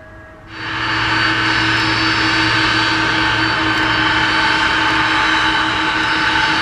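Boeing 767-300ER's twin turbofan engines running loud and steady on the runway, a whine of several steady tones over a jet rush. It cuts in suddenly about half a second in.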